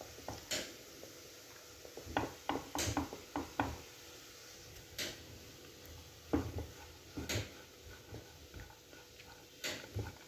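Silicone spatula scraping and knocking against a nonstick pan while stirring crumbly moong dal paste roasting in ghee. The knocks are irregular, with a run of them a couple of seconds in and single ones after.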